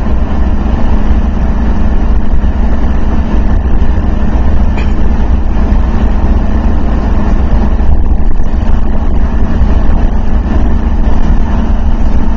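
Steady cab noise of a large vehicle cruising at highway speed: a deep, even engine drone with road and tyre noise.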